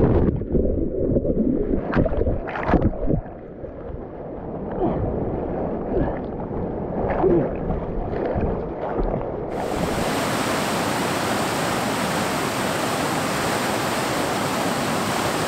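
Whitewater rapids heard from a camera carried by a swimmer in the current. For the first nine or so seconds the churning water sounds muffled, as from under or in the foam, with a few knocks near the start. Then the full rush of the rapids cuts in sharply as the camera comes back above the surface.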